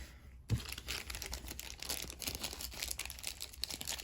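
Crinkling and tearing of a trading-card pack's foil wrapper being handled, a dense run of small crackles that starts about half a second in.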